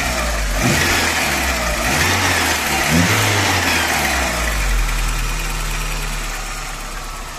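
Volkswagen Saveiro engine running with a rasping, scraping noise from the belt pulley rubbing against its belt cover. The noise swells about a second in and fades over the next few seconds, returning as the water that had quieted it dries off. The cause is a cover broken at its bolt, so the pulley catches on it.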